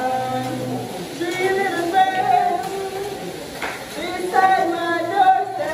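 A high voice singing a melody in long held notes, in three phrases with short breaks between them.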